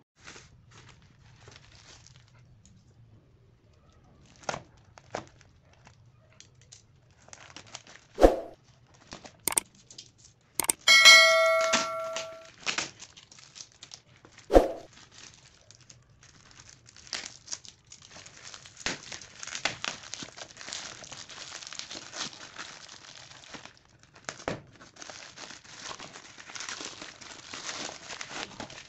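A plastic courier mailer being torn open and crumpled by hand, with scattered sharp clicks and snaps at first and steady plastic crinkling through the second half as the bubble-wrapped contents are handled. A brief ringing chime sounds near the middle.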